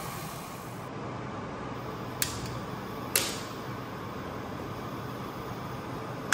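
Gas hob burner being lit: two sharp igniter clicks about two and three seconds in, the second followed by a brief whoosh, over a steady hiss. A loud metal clunk right at the end as a steel pot is set down on the cast-iron grate.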